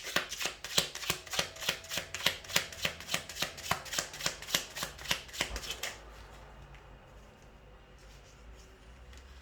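A deck of cards shuffled by hand in quick, even strokes, about four a second. The shuffling stops about six seconds in.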